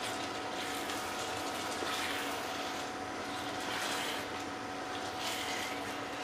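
Chicken and onion-tomato paste sizzling in hot oil in a nonstick kadhai while being stirred with a silicone spatula, with a steady hum underneath.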